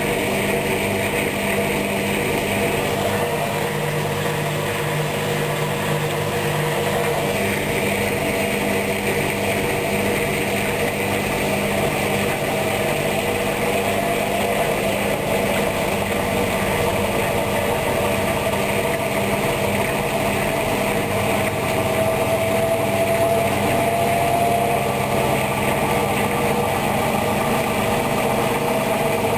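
Hoover washing machine running on its wool programme: a steady motor hum with a whining tone that rises slowly in pitch over the middle of the stretch.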